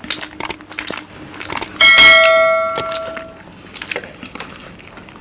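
A metal dish struck once, about two seconds in, ringing out with a clear bell-like tone that fades over about a second and a half, among small clicks of utensils and dishes.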